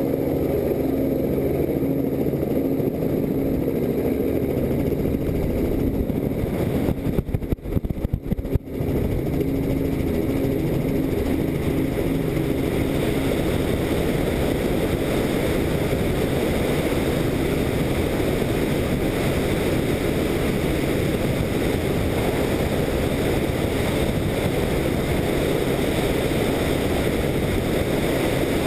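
Helicopter's rotors and motor running steadily, heard from a camera mounted on it, with wind rushing over the microphone. A low pitched hum stands out in the first few seconds. About seven to nine seconds in the sound breaks up and dips several times, then settles into an even rushing noise.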